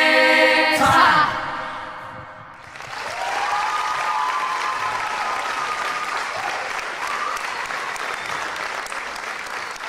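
Cast and rock band end the song on a held sung chord, cut off with a final hit about a second in. After a short lull the audience applauds steadily, with some cheering.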